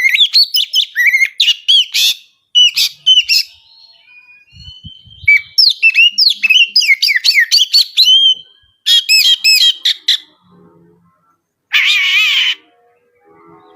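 Oriental magpie-robin (kacer) singing a fast, varied song of high chirps and whistled glides in dense runs broken by short pauses, with one harsh, rasping note about twelve seconds in.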